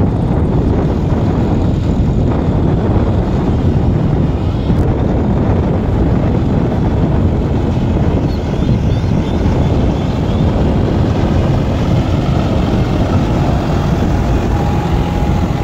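John Deere 5310 tractor's three-cylinder diesel engine running steadily under load while pulling a spring-tine cultivator through dry soil.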